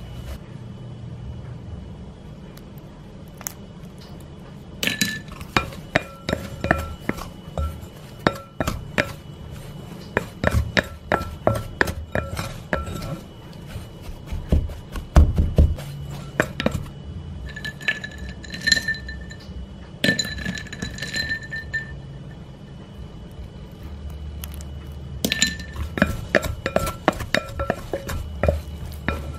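Spatula scraping and tapping against a glass mixing bowl while cutting butter into flour for pie-crust dough: repeated clinks and knocks, with the glass ringing briefly a few times.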